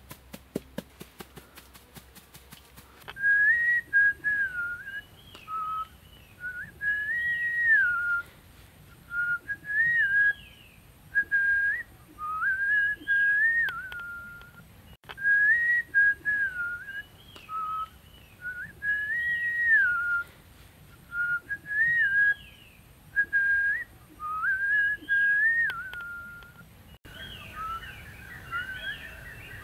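A clear whistled tune of short phrases that step between a few pitches and repeat over and over, beginning about three seconds in and breaking off shortly before the end, where busier bird chirping takes over.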